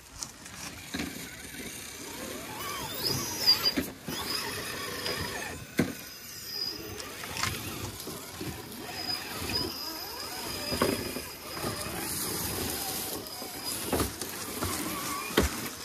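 Small electric motors and gearboxes of miniature RC rock crawlers whining as the trucks crawl over rocks, with a high steady whine that comes and goes and short rises in pitch. Several sharp knocks are heard along the way.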